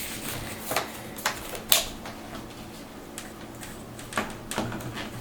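Light plastic clicks and knocks from a Dell Latitude D620 laptop being handled as its battery is refitted. There are several separate clicks, the sharpest about a second and a half in and a few more about four seconds in.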